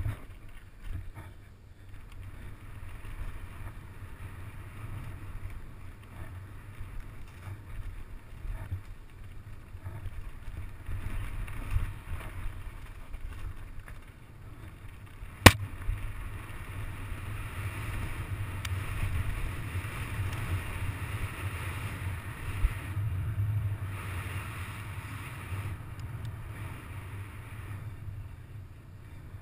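Mountain bike descending a dirt trail, heard from a helmet-mounted camera: a steady low wind rumble on the microphone with tyre noise and small knocks and rattles from the bike over rough ground. One sharp knock about halfway through.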